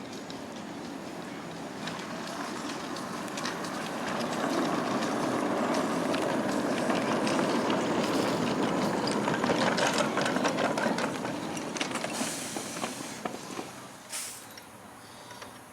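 Miniature railway train passing on its track, with a clattering of many quick clicks. It grows louder, holds for several seconds, then fades away.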